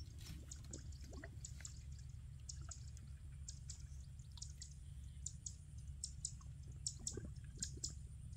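Faint water ambience at a pond's edge: scattered small drips and ticks over a low steady rumble.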